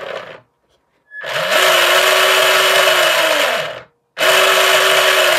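Small RC boat's electric motor and plastic propeller run up out of the water on a 2S LiPo, about twice its stock voltage: a loud whirring whine. A short run dies away about half a second in, then come two full-throttle runs of two to three seconds each, the pitch climbing quickly, holding steady, then falling as the motor spins down.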